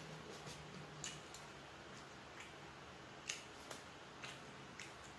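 Close-mouthed chewing of crispy fried fermented fish (pla ra tod): scattered soft crunches and mouth clicks, about eight in all, with a faint hummed 'mm' in the first second or so.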